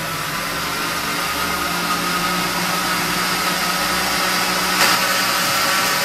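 Walita countertop blender running steadily, blending a jug of liquids (milk, oil, eggs and water).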